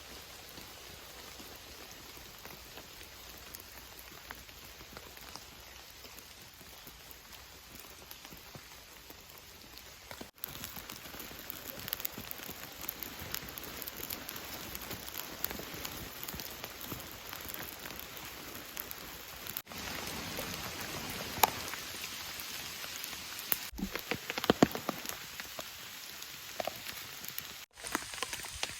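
Rain falling steadily, a dense hiss with scattered sharper drop hits. The sound breaks off abruptly and starts again, a little louder, several times.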